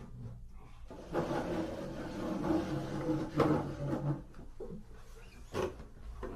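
Acoustic guitar strummed, a few chords ringing for about three seconds, followed by a couple of sharp knocks.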